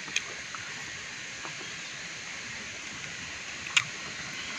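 Steady outdoor hiss, like running water, with a sharp click just after the start and another near the end.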